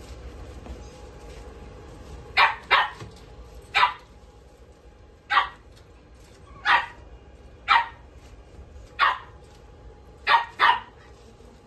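Small curly-coated red dog giving short, sharp barks, nine in all, starting about two seconds in and coming roughly once a second, some in quick pairs.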